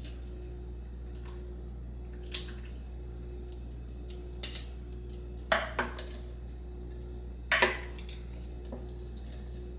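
Metal utensils clinking against a slow cooker's pot while shredding slow-cooked venison shank: a few scattered clinks, the loudest about five and a half and seven and a half seconds in.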